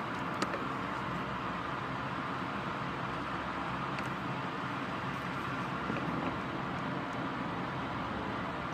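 Steady rain falling during a thunderstorm, an even hiss with a few small ticks of drops.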